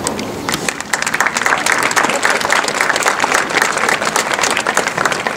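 Audience applauding: a crowd clapping that starts about half a second in and quickly fills out into dense, steady applause.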